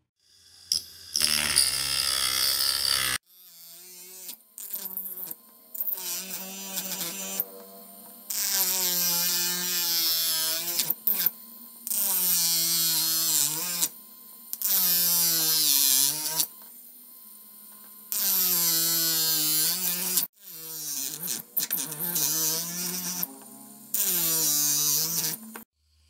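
A 775 DC motor with a small cutting disc in a chuck whines as it spins, and its pitch sags each time the disc bites into the rim of a PVC end cap. It gives several loud gritty bursts of a second or two, one for each slot cut.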